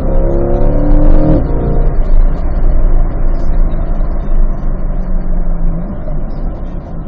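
Sports car engine under hard acceleration: the revs climb, drop sharply at an upshift about a second and a half in, then climb again through the next gear and drop at another shift near the end.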